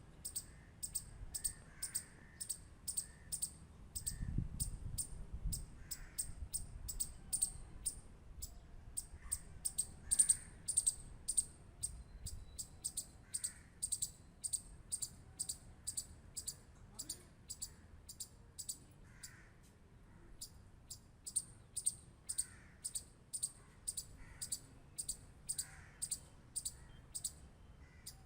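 Squirrel clicking: short, sharp, high-pitched clicks repeating steadily about twice a second.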